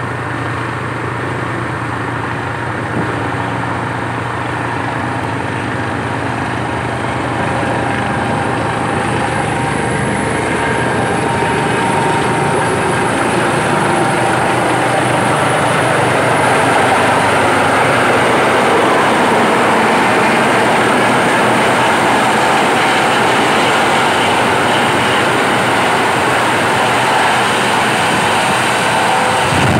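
Helicopter approaching, its rotor and engine noise a steady rush that grows louder for about the first half as it comes in close, then holds loud and steady.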